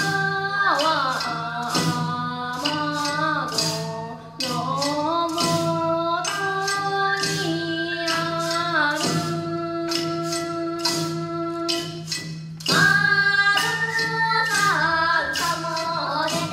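Live Japanese folk song: a singer holds long, gliding notes over a regular clacking percussion beat, with instrumental accompaniment beneath.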